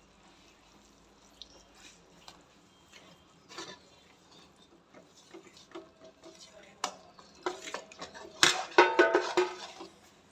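A spoon stirs and scrapes wheat flour into melted jaggery syrup in a heavy-bottomed kadhai. Scattered light scrapes and clicks build in the last few seconds to a run of loud metal knocks with a ringing tone.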